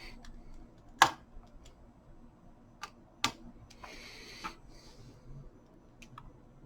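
Sharp clicks and light taps of a screwdriver and small parts being handled inside an opened laptop. The loudest click comes about a second in and two more near three seconds, with brief scraping and rustling between them.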